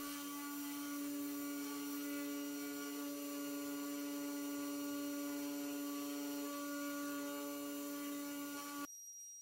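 Sainsmart Genmitsu 3018 Pro desktop CNC router running: a steady hum from its spindle motor, with fainter tones that change pitch a few times as the stepper motors move the 1.6 mm bit through the aspen lettering. The sound cuts off abruptly near the end.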